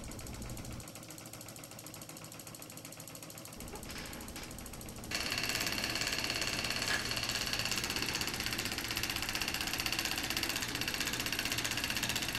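Model Stirling hot-air engines running with a rapid mechanical ticking. About five seconds in, a louder steady mechanical running sound with a high whine starts up, as the radio-controlled model tractor with its alcohol-fired Stirling engine comes in.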